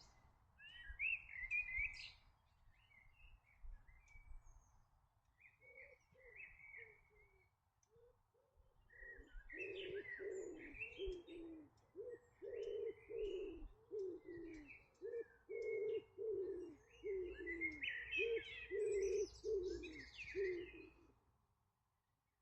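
Small birds chirping, with a dove cooing in a long run of repeated low notes from about five seconds in until shortly before the end.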